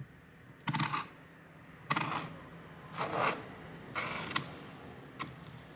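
A flathead screwdriver twisting against a laptop's plastic display cover: four short scraping, clicking strokes about a second apart, then a faint one near the end, as the plastic is levered back into place.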